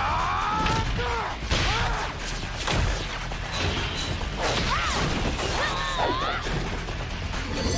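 Cartoon battle sound effects over a music score: short zapping sounds that swoop up and down in pitch, several times, mixed with crashes and whooshes.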